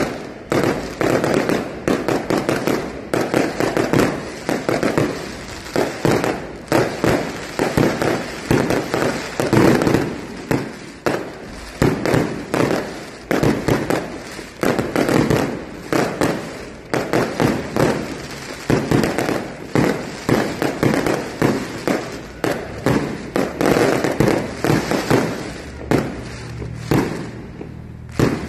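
A continuous fireworks barrage: loud bangs going off one after another, often several a second and overlapping, with crackling between them.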